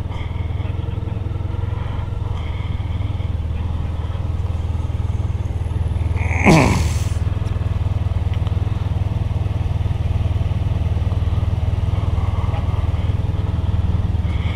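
Motorcycle underway at a steady speed, its engine and the wind giving a steady low rumble. About halfway through there is one brief, sharp sound that drops quickly in pitch.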